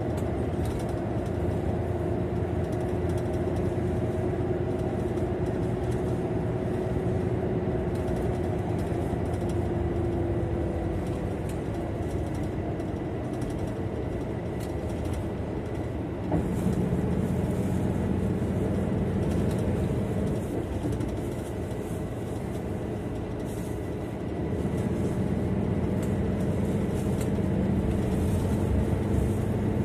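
Engine and road noise heard from inside a moving bus, a steady hum whose held tones shift a few times as it changes speed, getting louder about halfway through and again near the end.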